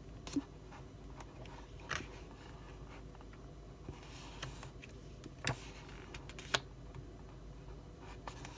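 Pages of an album photobook being handled and turned: a few light paper taps and soft rustles over faint room noise.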